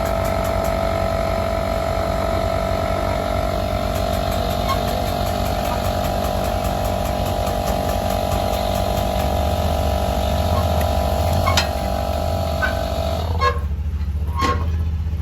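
A small electric air pump running with a steady whine over an idling engine, cutting off about thirteen seconds in; a few clicks and knocks follow near the end.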